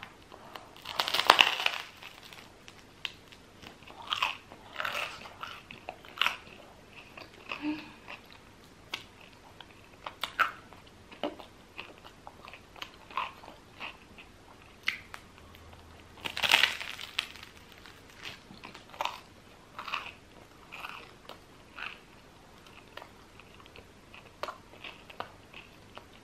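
Close-miked eating of crusty baguette with soft cheese: irregular crisp crunches of the crust and wet chewing, with louder bites about a second in and again around sixteen seconds.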